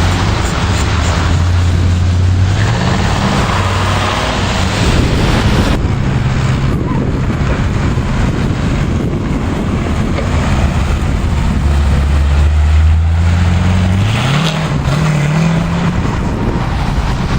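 Sports car engines running and accelerating, the low engine note climbing in pitch about two and a half seconds in and again near fourteen seconds; the sound changes abruptly about six seconds in.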